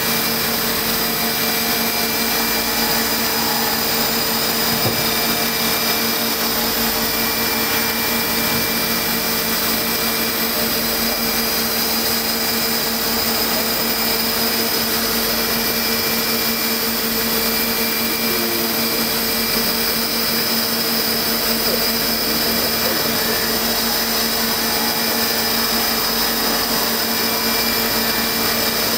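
CNC machining centre's spindle turning a 12 mm four-flute coated carbide end mill at about 2,100 rpm as it mills a bore in a thick carbon-fibre (CFRP) plate: a steady whirring hum with a constant high whine over an even hiss.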